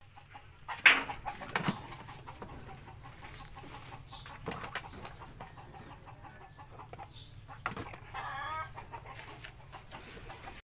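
Rabbits being handled at wire-mesh hutches and dropped into a plastic bucket: a sharp knock about a second in, then scattered knocks, rattles and scrabbling. Chickens cluck near the end.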